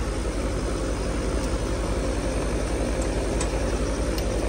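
Central air-conditioning unit running steadily: a constant machine hum with fan noise, with a few faint ticks near the end.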